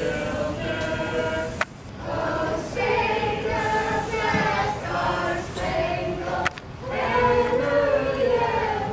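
A swim team's group of young voices singing a team cheer together in unison, in chanted phrases broken by two short pauses.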